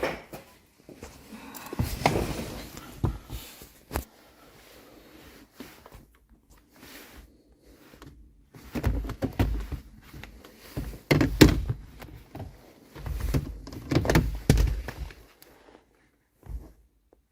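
A series of irregular thunks and knocks, with clattering clusters of handling noise and quieter gaps between.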